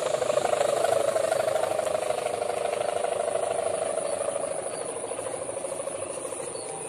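A sendaren (kite hummer) on a pegon kite droning in the wind. It gives one steady mid-pitched tone with a fast pulsing flutter, the diesel-engine-like sound it is set up for, and slowly fades toward the end.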